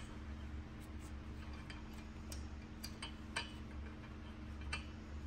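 Light metal clicks and taps at irregular intervals as a Hemi valve spring compressor tool is handled and seated on the valve springs of a bare cylinder head, over a steady low hum.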